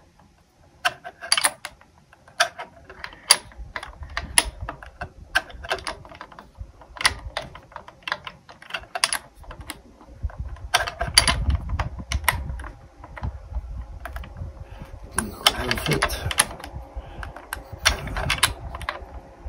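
Irregular metal clicks and taps from a hex key seeking and turning the mounting screw of a kickstand under an e-bike frame. The clicks come in short clusters, with a brief scraping rustle a little past the middle.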